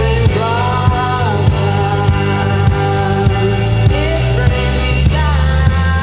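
Live band music with a steady drum beat of about one and a half hits a second under held chords, and a sung melody that slides between notes.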